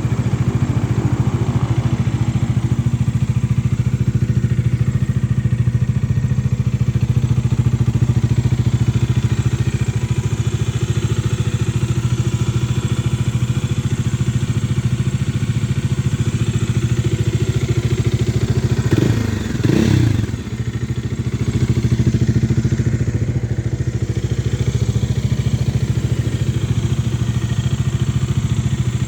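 Bajaj Dominar 400's single-cylinder DOHC engine idling steadily through its twin-barrel exhaust. About nineteen seconds in, the throttle is blipped once, so the engine note rises and falls back to idle.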